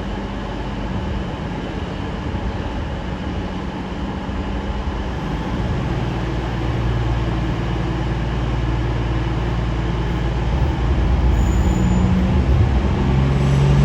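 Class 150 Sprinter diesel multiple unit drawing into the station. The rumble of its underfloor Cummins diesel engines grows louder from about halfway through, and there is a brief high squeal near the end.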